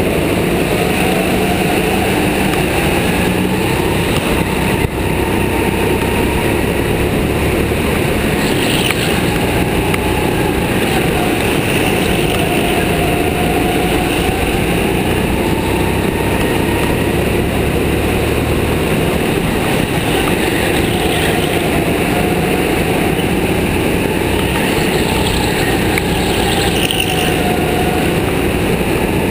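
Go-kart engine running hard, heard from onboard the kart, its pitch rising and falling again and again as the kart speeds up and slows down around the track.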